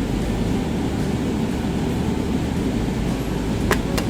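Steady low rumbling background noise, with two sharp clicks near the end as the small parts of an opened brake switch are handled.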